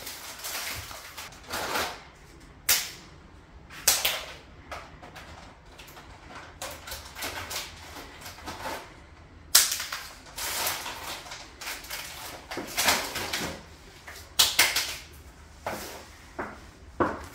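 Plastic wrapper of a packet of ladyfinger biscuits crinkling and rustling as it is handled and opened, with sharp, irregular crackles and taps throughout, some of them biscuits and crumbs dropping onto a tile floor.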